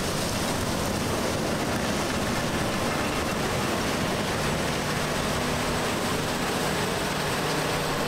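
John Deere S780 combine harvesting soybeans close by: a steady, dense rush of machine noise, with a low engine hum that comes through more clearly after a few seconds.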